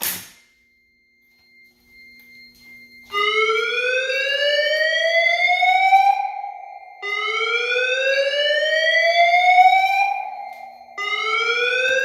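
Fire alarm voice-evacuation speakers sounding the slow whoop alert tone after a pull station is activated: a loud tone sweeping slowly upward over about four seconds, repeated three times, starting about three seconds in.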